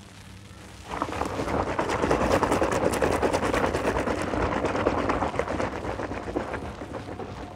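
A hand plunging into and stirring a plastic basin of foamy soapy water: sloshing with dense crackling of foam. It starts about a second in and fades over the last couple of seconds.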